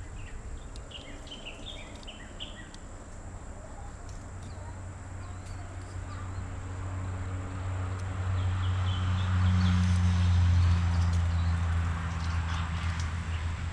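Outdoor background: birds chirp a few times early on, while a low engine hum with road noise builds up, is loudest about ten seconds in, and eases off near the end.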